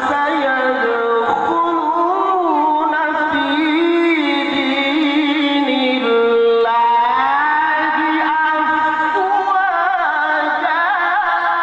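A solo male voice chanting a melodic Quran recitation (tilawah), holding long notes that wind through ornaments from one pitch to the next.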